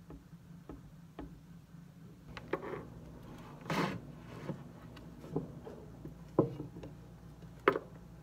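Desk study sounds over a low steady hum: a 1st-gen Apple Pencil tapping and writing on an iPad's screen protector, with a rustle of textbook pages about four seconds in. Two sharper knocks come in the second half.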